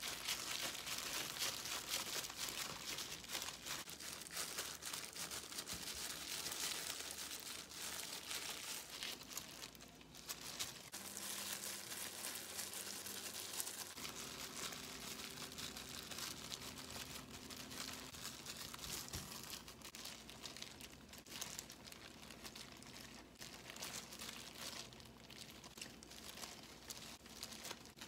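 Disposable plastic gloves crinkling and dried laver (gim) sheets rustling as hands spread rice and roll gimbap: a continuous run of soft, close crackles.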